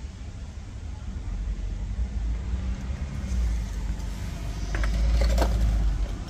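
Low rumble of a passing vehicle, swelling through the middle and falling away near the end. A few light clicks and knocks come as a plastic outboard fuel tank is turned over and set down on concrete.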